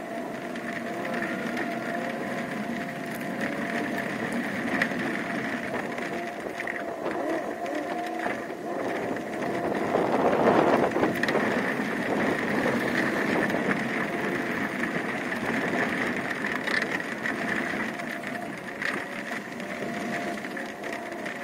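Pickup truck driving slowly on a dirt road, heard from its bed: a steady mechanical drone and whine with road noise and a few small knocks, swelling louder about ten seconds in.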